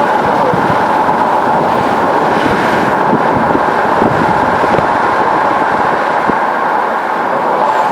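Steady road and engine noise heard inside a moving car, with a few faint clicks in the middle seconds.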